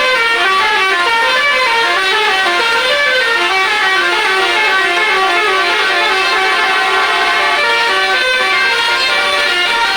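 Bus telolet horns playing a melody: a fast run of sustained horn notes stepping up and down in pitch, several notes a second, with no gaps.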